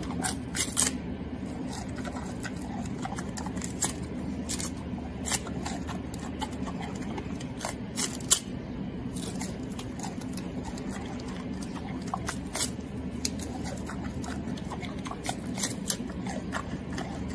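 Giant panda chewing a bamboo stalk close up: irregular crisp cracks and crunches as the stalk splinters between its teeth, the loudest about eight seconds in, over a steady low hum.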